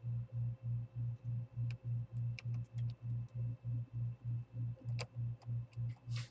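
A low hum pulsing about five times a second runs throughout and is the loudest sound. Over it come a few faint clicks and taps of a small screwdriver on the screws of a laptop screen's metal bracket, with a brief rustle near the end.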